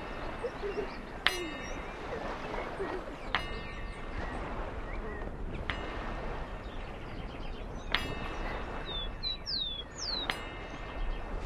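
Metal struck five times at an even pace, about every two seconds, each strike ringing briefly, with a few bird chirps near the end.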